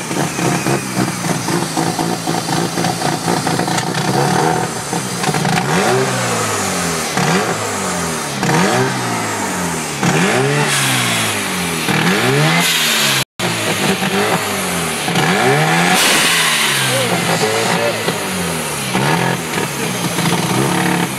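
Mazda RX-7 FC's 13B two-rotor rotary engine being revved in repeated throttle blips, its pitch rising and falling about once every second and a half. The sound cuts out for a split second about thirteen seconds in.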